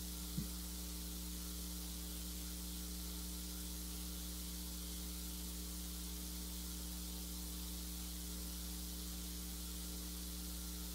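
Steady electrical hum with its overtones under a constant hiss, the recording's background noise during a pause; a single brief click about half a second in.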